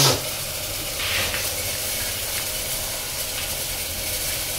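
Steady hiss of cooking on a gas stove, with a brief clatter right at the start.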